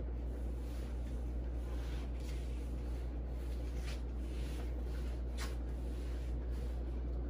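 Steady low hum of room noise, with a few faint soft scuffs as a person shifts position on the floor.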